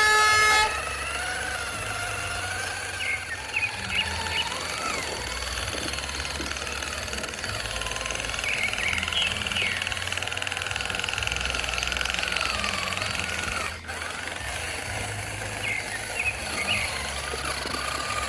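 A truck horn sounding and cutting off about half a second in, then radio-controlled model trucks running: a steady low hum under electric motor whine that rises and falls in pitch with the throttle, with a few small clicks.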